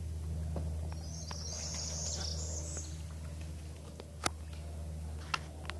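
A bird gives a high, chattering call for about two seconds, starting about a second in, over a steady low rumble. Two sharp clicks come in the second half.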